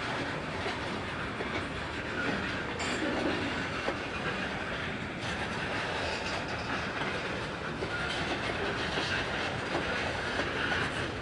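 Diesel freight locomotives working under load to bring a heavy, loaded grain train up to speed, with the rolling noise of the train on the rails. The sound is a steady, even noise with no horn.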